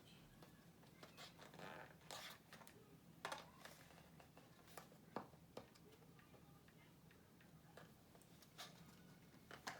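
Near silence: room tone with a low steady hum and faint, scattered small clicks and rustles of handling.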